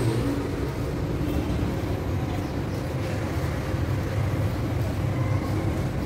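Steady low rumble of outdoor urban background noise, with no distinct event standing out.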